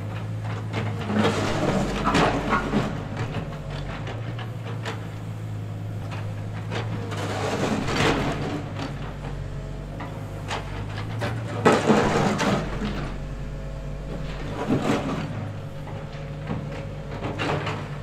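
Komatsu wheeled excavator's diesel engine running steadily as it digs, with louder bursts of mechanical noise and knocks every few seconds. The loudest burst comes about twelve seconds in.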